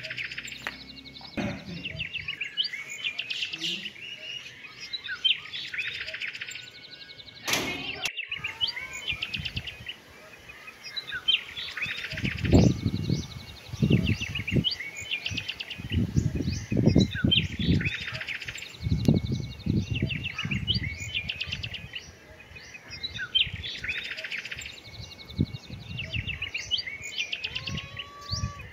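Small birds chirping, repeating a short bright phrase every two to three seconds. A click comes about a third of the way in, and loud low dull rumbles come in short runs through the middle.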